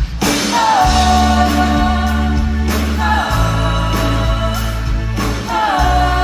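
Live pop-rock band playing the slow opening of a song: long held chords over sustained bass notes. A melody line slides down into a long held note about half a second in and again near the end.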